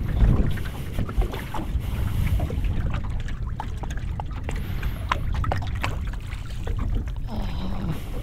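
Steady low rumble of wind on the microphone, with scattered knocks and clicks from footsteps and gear on a small aluminium boat's hull.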